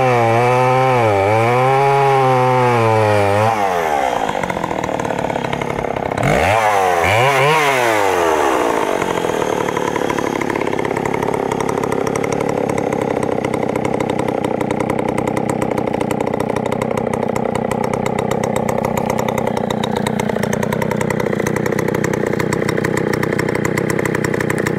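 Vintage Dolmar CC 109 two-stroke chainsaw cutting through a large log, its engine note dipping and recovering about once a second under load. After about four seconds it comes out of the cut, revs up and down once, then settles to a steady idle.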